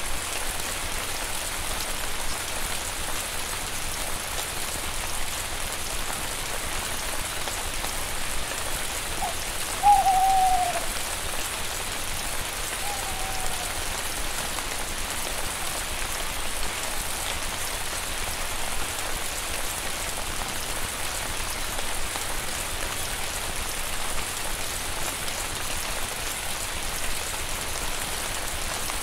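Steady rain falling, a constant even hiss. About ten seconds in, a short call falling in pitch rises above it, followed by a fainter one about three seconds later.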